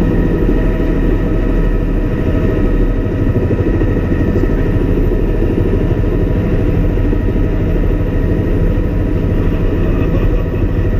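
Bell LongRanger II helicopter heard from inside the cockpit: steady turbine engine and rotor noise, a dense low rumble with a high whine.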